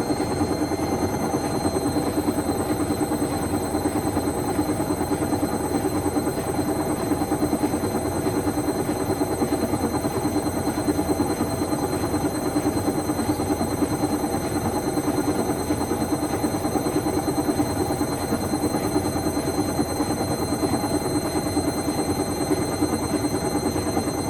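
Indesit Moon SIXL145 washing machine spinning at high speed: a steady rumble of the drum with a high, steady motor whine, the spin holding at its top speed.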